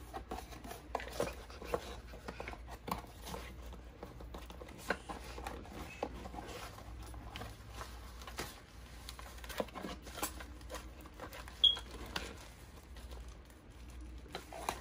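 Cardboard brake-pad boxes being opened and handled: rustling, with scattered clicks and taps as the pads are pulled out. One short, sharp high-pitched sound near the end is the loudest moment.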